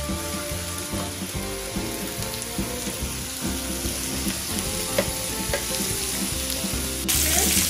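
Steak and sliced onions frying on an electric griddle plate: a steady sizzle, with the spatula clicking against the plate now and then. The sizzle gets louder and brighter about seven seconds in.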